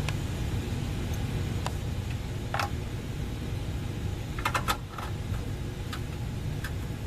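Scattered light clicks and taps of tools and screws as the sheet-metal screws come out of a tankless water heater's fan unit, with a quick cluster of clicks about four and a half seconds in. A steady low hum runs underneath.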